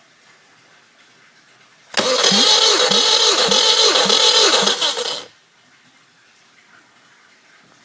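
Subaru EJ201 2.0-litre flat-four engine turned over by its starter motor for about three seconds, a loud cranking with an even pulsing beat that starts and stops abruptly.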